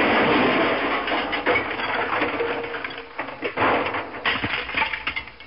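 Studio audience crowd noise after a losing game, heard through a TV speaker, dying away over a few seconds.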